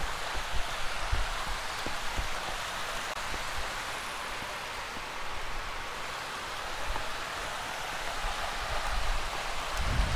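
Steady rush of a river running over rocky riffles, with a few low bumps near the start and again near the end.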